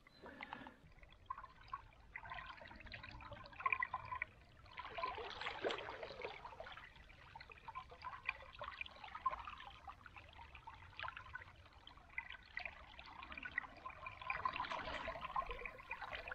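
Faint, irregular splashing and trickling of shallow river water as hands work a fish out of a landing net in the water, a little fuller about five seconds in.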